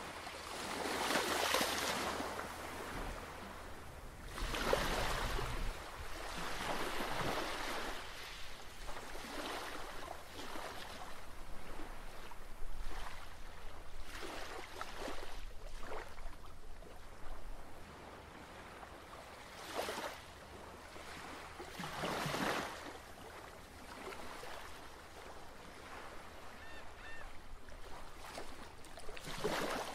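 Small waves washing in, swelling and fading every few seconds, over a faint steady low hum.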